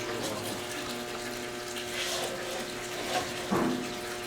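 Steady hum of boiler-room machinery with a rushing, water-like hiss, broken by a light knock about two seconds in and a sharper, louder knock about three and a half seconds in.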